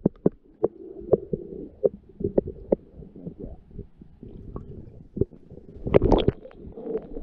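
Muffled sound heard through a camera submerged in a shallow creek: scattered knocks and clicks over a low rumble, with a louder churning of water about six seconds in.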